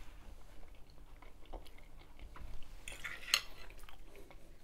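Fork clicking and scraping against a plate while a bite of spaghetti is taken, with scattered light clicks and a sharper clink a little over three seconds in.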